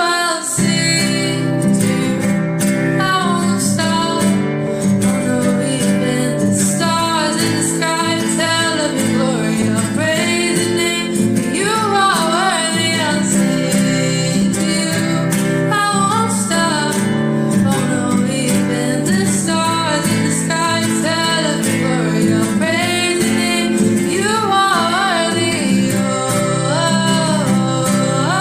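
Music: a woman singing a worship song over strummed acoustic guitar.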